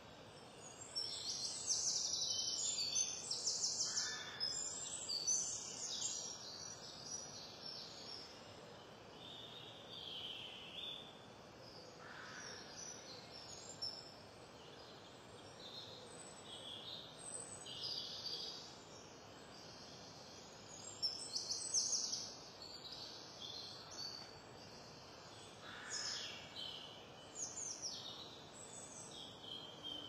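Woodland birdsong: several songbirds singing in short repeated high phrases and trills, over faint background hiss. The singing is loudest in the first few seconds and again about two-thirds of the way through.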